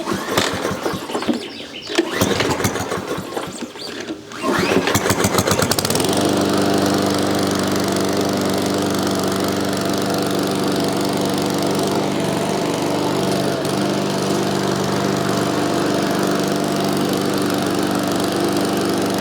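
PowerSmart 170cc four-stroke single-cylinder lawn mower engine, freshly primed, catching on the first pull about four seconds in and settling into a steady run by about six seconds.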